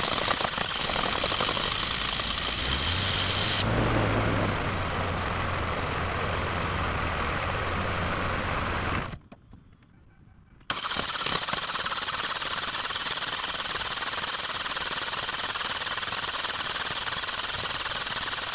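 Chevy Aveo's four-cylinder engine, its crankcase filled with water instead of oil, cranked by the starter. It catches about three seconds in, runs rough at very low revs and dies suddenly about nine seconds in. From about eleven seconds a second long crank fails to restart it; the owner puts its poor running down to no compression, fouled spark plugs or worn rings.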